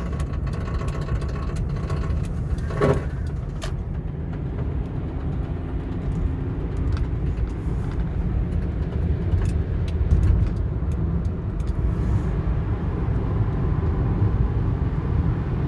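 A car making a steady low noise, with scattered short clicks and knocks through it: the noise left after the car was hit in a collision, with damaged tires blamed.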